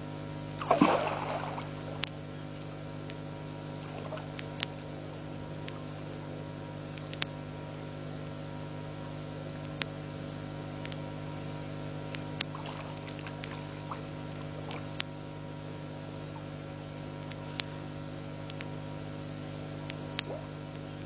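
Frogs calling at night: a short high note repeated about one and a half times a second, over a steady hum. There is a louder noisy burst about a second in and sharp clicks every couple of seconds.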